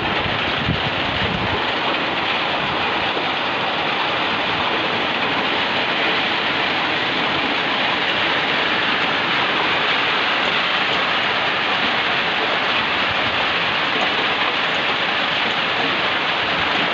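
Heavy downpour: rain pouring steadily as a dense, even hiss.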